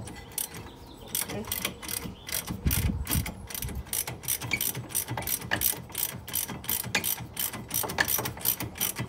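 Hand ratchet wrench clicking rapidly and steadily, about three to four clicks a second, as it backs out an already-loosened brake caliper mounting bolt.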